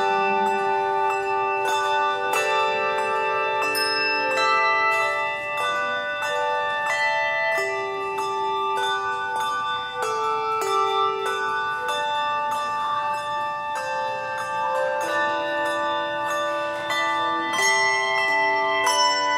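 A handbell choir playing: several handbells rung together in chords, each note ringing on and overlapping the next as new notes come in every second or two.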